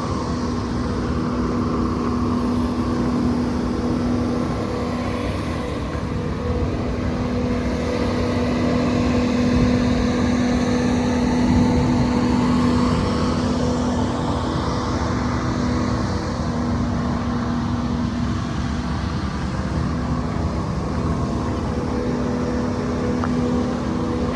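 Gehl 5635DXT skid steer's engine running steadily, a little louder in the middle.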